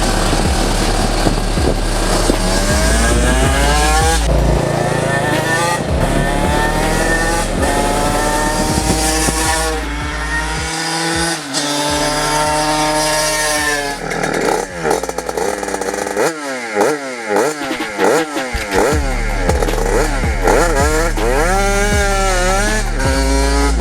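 Kawasaki Ninja 150RR's 150 cc two-stroke single-cylinder engine being revved again and again, its pitch rising and falling, with a run of short, quick throttle blips a little past halfway.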